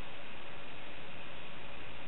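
Steady, even hiss of recording noise with no shot or impact in it.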